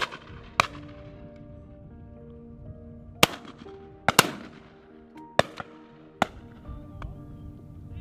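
12-gauge shotguns firing at driven pheasants passing over the line: about seven sharp shots, two of them close together about four seconds in. Background music with held notes plays underneath.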